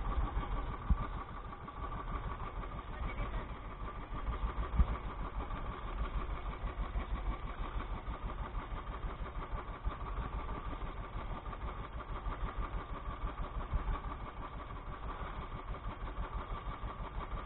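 Small engine running steadily at idle, a low even pulsing with a steady hum above it.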